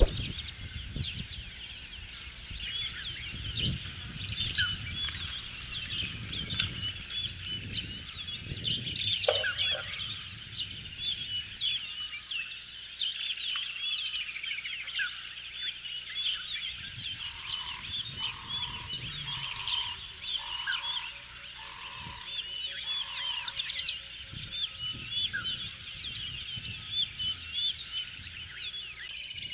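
Many wild birds chirping and trilling together, with a run of six short lower notes about a second apart midway. In the first ten seconds or so there is low rustling and knocking as the elephant pulls at the tree's leafy branches.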